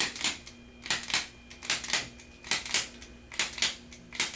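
Rhythmic clicking: pairs of sharp clicks, a quarter second apart, repeating steadily about every 0.8 seconds.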